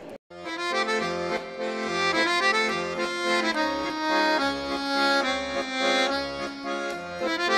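Closing theme music with sustained melody notes over a steady pulsing bass, starting after a brief moment of silence.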